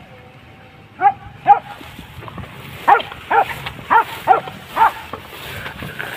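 Hunting dog barking in short, sharp barks: two about a second in, then a quick run of six more.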